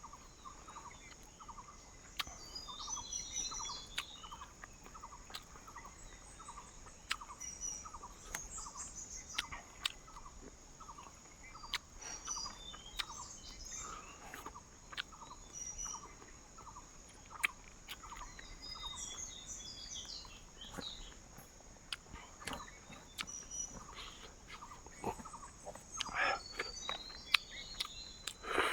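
Jungle ambience: birds chirping in short bursts over a steady high insect drone. A call of short, quick notes repeats about two to three times a second, with scattered sharp clicks.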